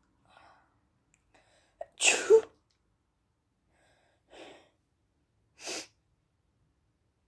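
A person with a bad head cold sneezing: a quick gasping intake, then one loud, harsh sneeze about two seconds in. Two shorter, quieter blasts of breath follow.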